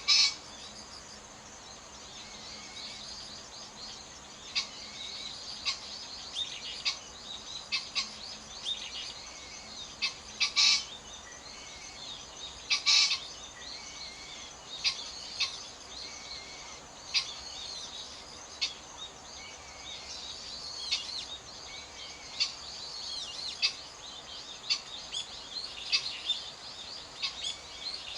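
Male green pheasant giving its harsh, short crowing call a few times: at the start, about ten seconds in, and a double call about thirteen seconds in. Small birds chirp throughout over the steady rush of a babbling stream.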